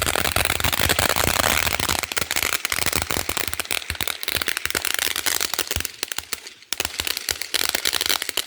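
Consumer firework crackling and popping: a dense, rapid string of sharp cracks that thins out near the end.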